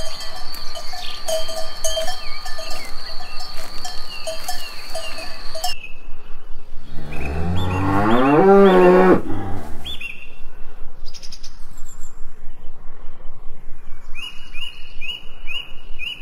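Cattle bells ringing and tinkling steadily, then a cow lowing once in a long call that rises in pitch a little past halfway, followed by lighter bell tinkles near the end.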